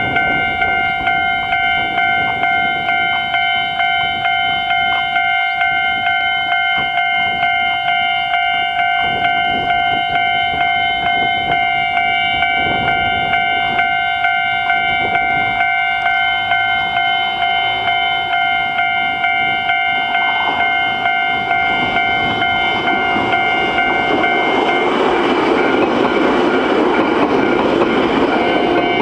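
Japanese level-crossing warning bell ringing, a steady evenly repeated electronic ding. From about twenty seconds in, a Nagano Electric Railway train's rumble and wheel clatter builds over it and is loudest near the end.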